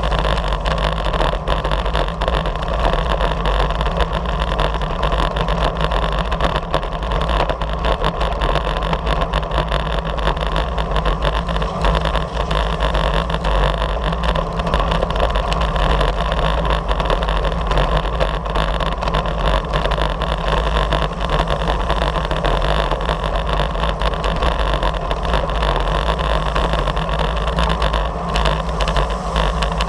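Steady wind rushing over the microphone of a camera mounted on a road bike riding at speed, with a constant low rumble and the hum of tyres on the asphalt.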